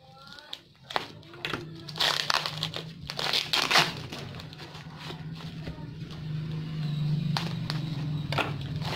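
Plastic parcel wrapping and packing tape crinkling and tearing as a package is cut open with scissors and pulled apart by hand. A few sharp snips come early, the loudest rustling and tearing comes around two to four seconds in, and a steadier rasp of tape being peeled follows in the second half.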